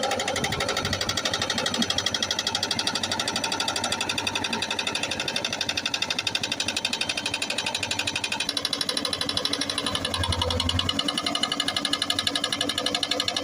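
Hydraulic breaker on a Hyundai 220LC excavator hammering stone in a fast, steady rattle of blows, with the excavator's engine running under it.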